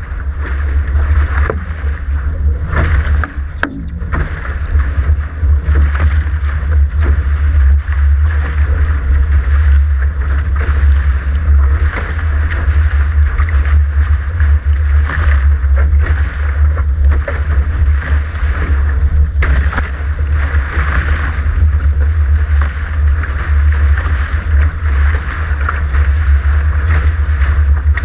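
Water rushing and splashing along the hulls of a Dart catamaran sailing at speed, a continuous hiss of spray, over a heavy steady low rumble of wind buffeting the hull-mounted camera.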